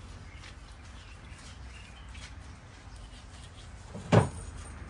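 Knife scraping the scales off a pearl spot fish in light, uneven strokes, with one loud knock about four seconds in.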